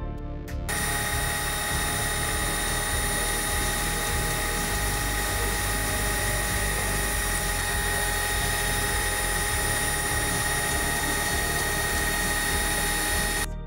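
Milling machine running steadily, its spindle whining at a fixed pitch while a drill bit bores holes in the flange of a metal hub. It cuts in abruptly under a second in, replacing music.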